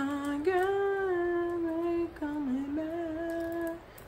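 A woman humming a tune in long held notes, with short breaks about two seconds in and near the end.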